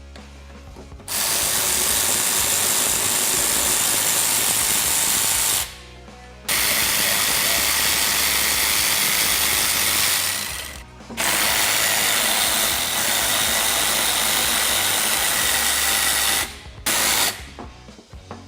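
Cordless drill-driver with a hex bit spinning Allen-headed screws out of the step clamps: three long steady runs of several seconds each with short pauses between, then a brief burst near the end.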